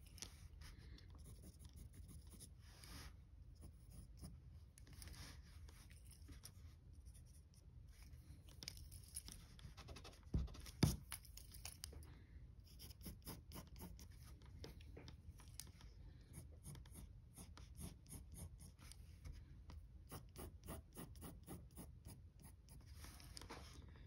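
Faint scratching of mechanical pencil lead on drawing paper in short, quick sketching strokes, with runs of rapid strokes near the end. Two louder knocks a little before the middle.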